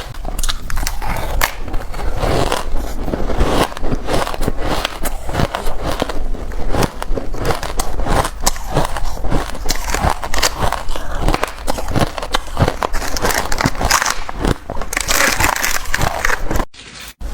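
Close-up biting and chewing of reshaped, powdery ice: dense crisp crunching and crackling. The sound cuts out briefly near the end.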